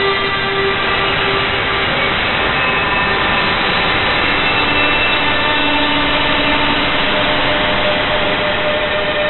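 Loud, steady noise drone with several held tones that fade in and out, like a roar of engine or train noise.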